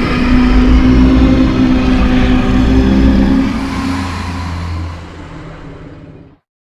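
Brachiosaurus sound effect: one long, low, drawn-out call with a deep rumble beneath it, loudest in its first three seconds, then fading and cutting off shortly before the end.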